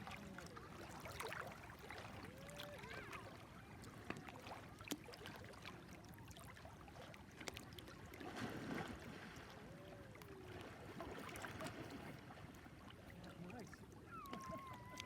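Faint beach ambience: water lapping at the shore with small splashing clicks, and distant voices calling now and then.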